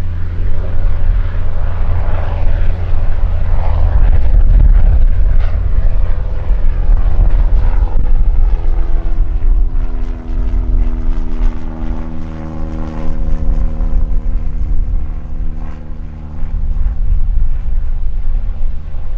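Cessna O-2A Skymaster's twin push-pull piston engines and propellers droning in flight as the plane flies toward the listener, under a heavy low rumble. From about halfway a steady engine hum with clear pitched tones stands out.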